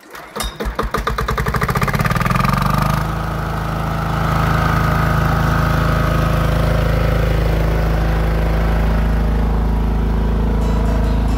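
A portable gasoline welding generator's engine starting: its firing strokes quicken and rise in pitch over the first three seconds, then it settles into steady running.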